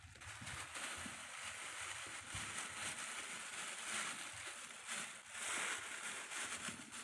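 Faint water sloshing over a steady outdoor hiss.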